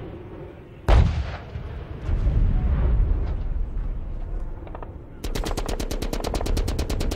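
A single loud bang about a second in, followed by a low rumble, then near the end a long rapid burst of automatic gunfire, about ten shots a second.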